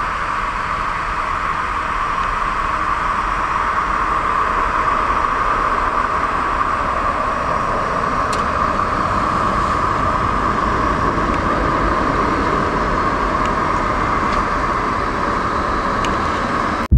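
Jet engine noise from a departing Boeing 737-700, whose CFM56-7B turbofans are at takeoff power as it climbs out. It is a steady rush with a strong droning band in the middle, growing a little louder a few seconds in.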